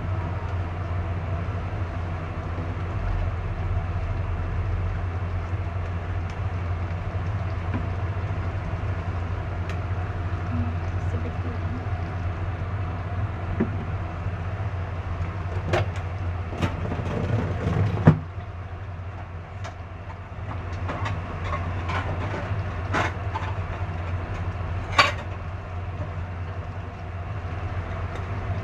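Steady low rumble from a kitchen stove while a pot of chicken braises. A few sharp metal clinks of cookware come in the second half, the loudest about eighteen seconds in, after which the rumble is a little quieter.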